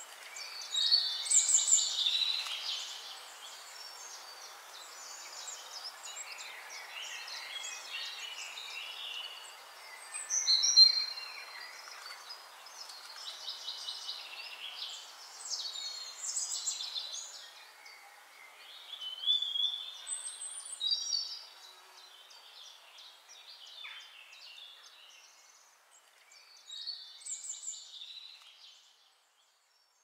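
Birds chirping and calling over a steady background hiss: many short, high chirps and whistles, loudest about a second in and again around eleven seconds. The sound drops away to silence just before the end.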